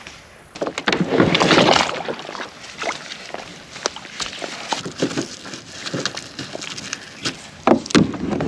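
Water splashing and sloshing around a kayak on the water, in uneven surges with small knocks and clicks between; the biggest splash comes about a second in, and another near the end.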